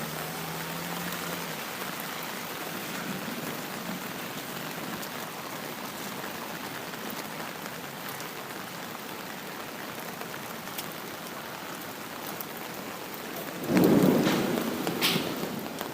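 Steady rain falling. About fourteen seconds in, a sudden loud thunderclap rumbles away over a couple of seconds, with a second sharper crack a second later.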